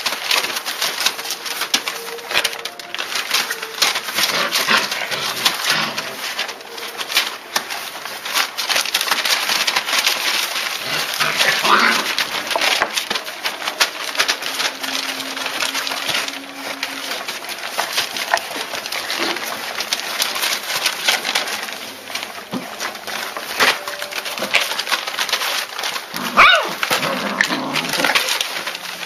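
German shepherd puppies whimpering, with a few short rising squeals and a low coo-like whine, over a constant crackle of small clicks.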